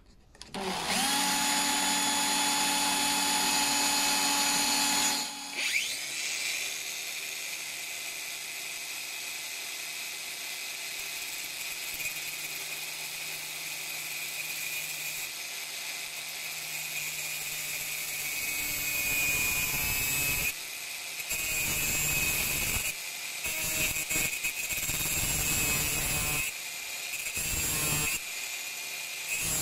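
An angle grinder and a cordless drill run together: their motors whine steadily from about a second in, with a rising whine about five seconds in as the sound changes. From about two-thirds of the way through, the grinder's cutting disc grinds against the spinning steel bit holder in repeated uneven bursts, cutting back its shoulder.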